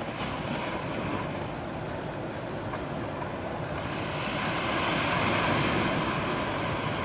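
Steady rushing outdoor noise of wind and distant breaking surf, swelling a little for a couple of seconds near the end.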